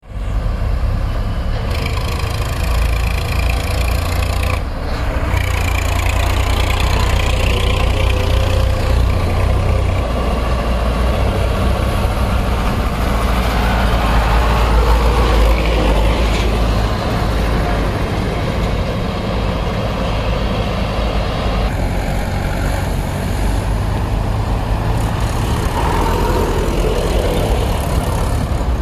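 Slow, heavy road traffic close by: tractors towing loaded sugarcane trailers, a lorry and motorbikes, their engines making a steady loud low rumble.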